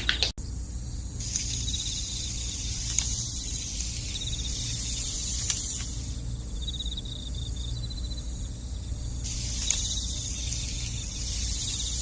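Insect chorus: a steady high hiss with a fast, pulsing trill that comes and goes every few seconds, over a low steady hum.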